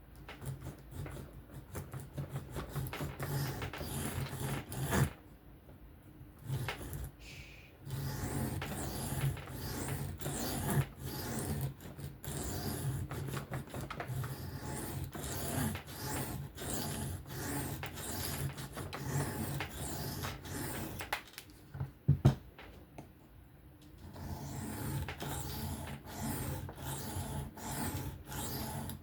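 A knife's 14C28N steel blade scraping in repeated freehand strokes across an Atoma diamond sharpening plate, a rasping sound that stops twice for a few seconds. A sharp knock comes in the second pause.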